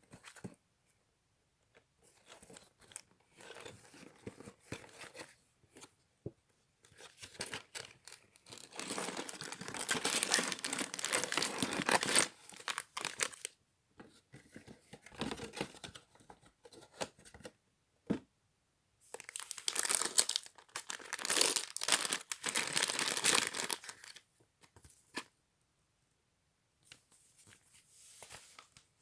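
LEGO set packaging being torn open and crinkled. It comes in several bouts of tearing and rustling, with quiet gaps between them.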